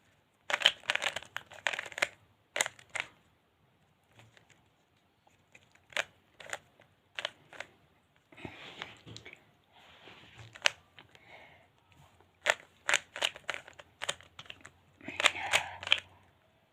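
Plastic 3x3 Rubik's cube being turned by hand: bursts of quick clicks and rattles from the turning layers, with short pauses between turn sequences.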